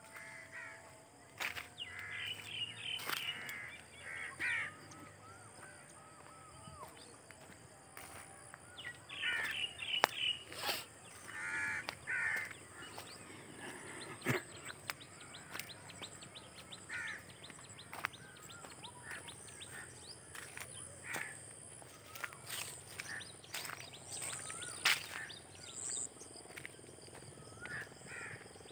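Crows cawing in repeated short series, with other birds chirping now and then. A few sharp clicks are heard among the calls.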